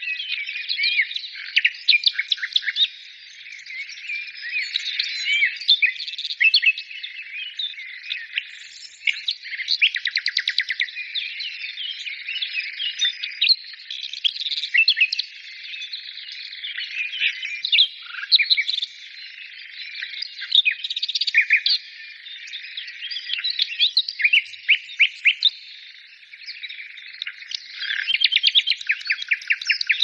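Many small songbirds chirping and trilling at once in a dense, continuous chorus, with rapid trilled runs of notes about ten seconds in and again near the end.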